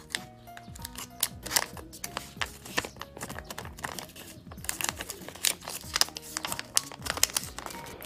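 Origami paper crinkling and crackling in quick, irregular bursts as hands fold and crease the sheet, over soft background music.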